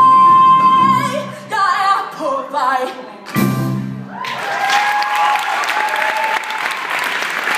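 A woman singing the end of a musical-theatre song with accompaniment. She holds a long note, sings a short closing phrase and the band plays a final chord. About four seconds in, an audience breaks into applause.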